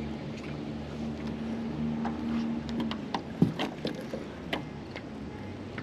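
A steady low hum that stops about three seconds in, then a scatter of sharp knocks and clanks from magnet-fishing gear and scrap metal being handled on a boat.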